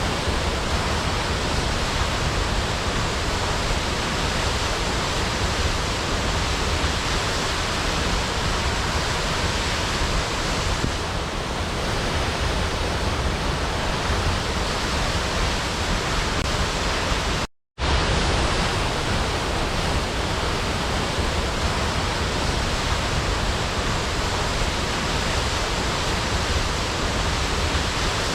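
Steady rushing water, an even hiss like a river or waterfall, cutting out completely for a split second about two thirds of the way through before resuming.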